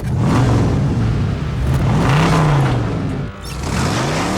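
Car engine revving hard, its pitch climbing and falling, then dropping briefly and climbing again near the end.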